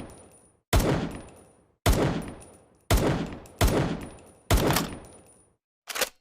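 Makeshift sound effect imitating M1911 pistol shots: five sharp bangs roughly a second apart, each trailing off in a fading echo, then a shorter, quieter one near the end.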